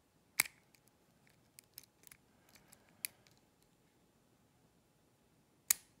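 Sharp metal clicks of lock picks and a tension wrench working inside a challenge lock: a loud click about half a second in and another near the end, with a few fainter ticks between.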